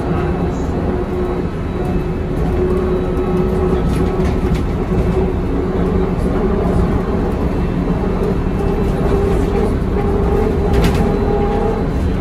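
Inside a Škoda 14 Tr trolleybus on the move: a steady electric traction-motor whine, its pitch slowly rising, over the rumble of the running gear and body. One short knock near the end.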